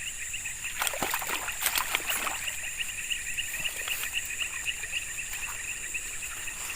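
Steady evening insect chorus, a fast pulsing buzz, with a few bursts of water splashing and rustling about one to two and a half seconds in as a hooked snakehead is brought in.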